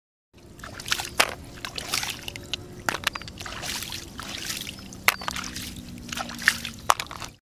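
Water splashing and sloshing in irregular bursts, with scattered sharp clicks.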